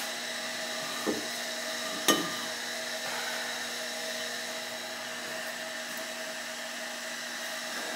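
Steady machine hum from the powered-up CNC laser setup, with two light knocks about a second apart as the engraved porcelain tile is picked up off the wooden spoilboard.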